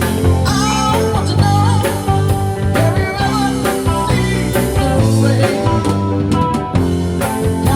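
Rock music: a band with guitar, bass and drums playing a steady beat, with a voice singing.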